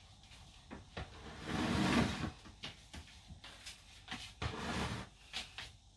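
Household cleaning and handling noises: scattered light knocks and clicks, with two longer swishing sounds, the first about a second and a half in and a shorter one about four and a half seconds in.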